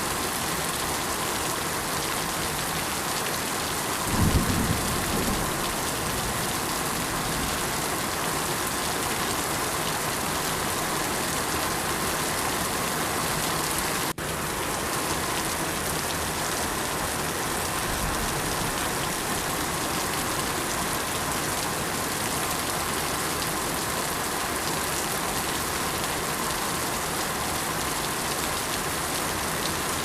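Steady, even rainfall, with a short low rumble of thunder about four seconds in. A split-second gap in the sound comes about halfway through.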